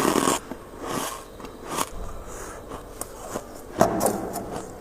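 Freezer frost being bitten and crunched in the mouth: a few separate crisp crunches about a second apart, the loudest a little under four seconds in.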